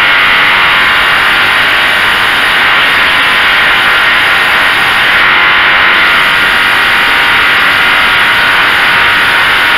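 Hyundai HY2000si inverter generator's four-stroke engine running steadily.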